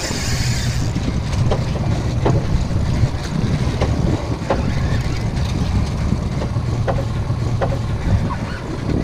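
Steady wind rumble on the microphone over water washing against a fishing boat's hull, with a short burst of hiss at the very start and scattered light clicks.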